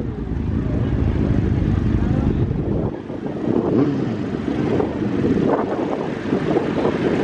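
A car driving slowly past close by, towing a float trailer, with onlookers' voices chattering around it.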